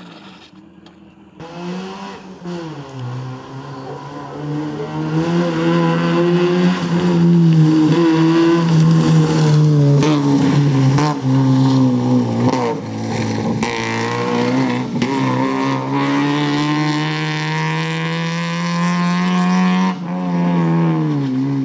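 Small Fiat Cinquecento rally car's engine revving hard under acceleration. Its pitch climbs and then drops at each gear change, and the sound jumps suddenly a couple of times.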